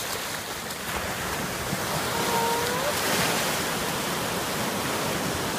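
Ocean surf breaking and washing up the beach in shallow water, a steady rushing wash.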